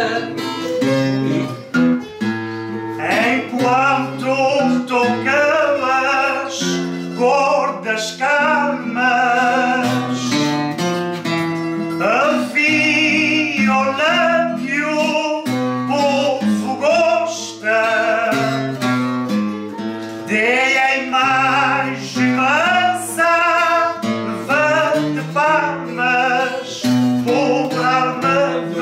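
Plucked-string folk music: a viola da terra and guitar playing a tune over a moving bass line, with notes changing in a steady rhythm.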